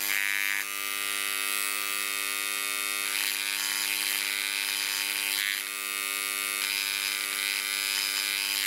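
Dremel Engraver 290-3 buzzing steadily, its diamond bit hammering at 6000 strokes a minute on the shallowest depth setting, 1. Bouts of high scratching come and go as the bit is drawn over glass.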